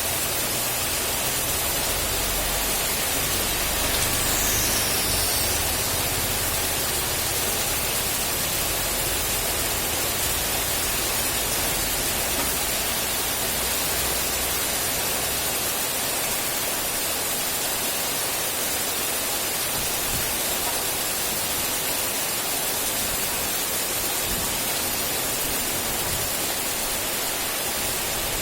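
Steady hiss of heavy rain, even and unbroken, with a low rumble underneath during the first several seconds.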